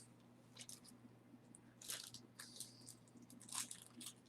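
Faint rustling and a few light clicks of small jewelry being handled, about four short bursts, over a low steady hum.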